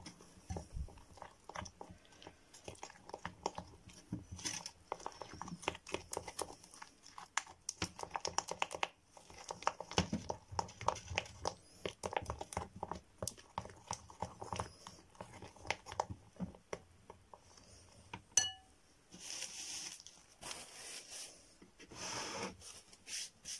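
Small plastic spatula stirring a thick, wet paste of cocoa powder and egg in a glass bowl: many quick sticky clicks and scrapes against the glass, with a few longer scrapes near the end.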